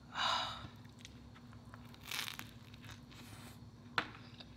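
Faint eating sounds as a cheesy cheeseburger slider is pulled apart and bitten: a few soft tearing and rustling noises, then one sharp mouth click a little after four seconds in.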